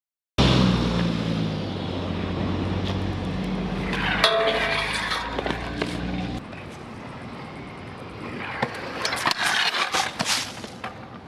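A steady low rumble fills the first half. In the last few seconds a stunt scooter's metal deck and wheels clatter and scrape in a run of sharp knocks on concrete steps as the rider bails.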